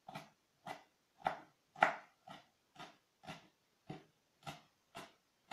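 Kitchen knife chopping shredded cabbage on a wooden cutting board, mincing it fine: even, sharp knocks about two a second, one harder stroke just under two seconds in.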